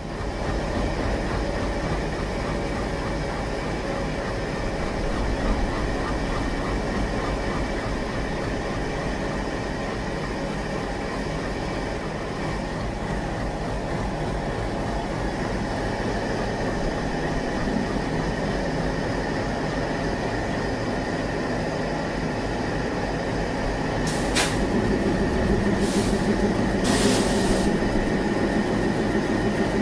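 WDM3A diesel-electric locomotive's ALCO 16-cylinder turbocharged engine idling steadily while standing at a platform. Near the end there are a few short hisses, and the engine note grows a little fuller and louder.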